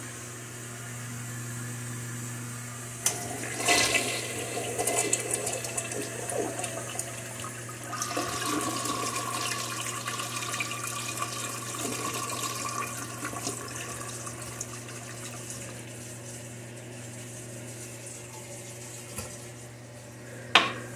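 Mansfield Alto toilet flushing: a click about three seconds in, then loud rushing water that carries on and slowly dies away, with a steady tone in the water from about eight seconds in, as the tank refills. A steady low hum runs underneath, and a sharp click comes near the end.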